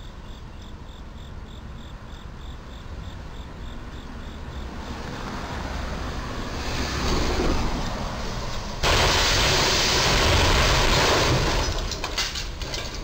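Box truck hitting a low railroad bridge's overhead crash beam. Traffic noise builds as vehicles approach, then about nine seconds in comes a sudden loud crash and scraping as the truck box's roof is torn open against the beam. The noise runs for a few seconds, then fades with some clattering of debris.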